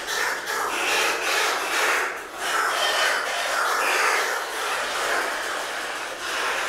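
Oilbirds (guácharos) screeching in a cave: overlapping harsh, rasping screams that rise and fall, with echo from the cavern.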